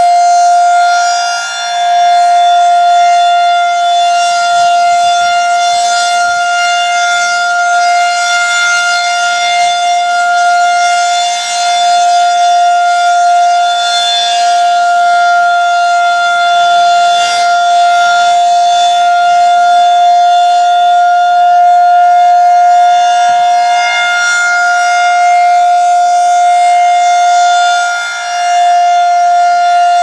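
Federal Signal 2001-SRN electronic siren sounding a steady alert tone for a warning-system test. The loudness dips briefly three times as the rotating horn turns away.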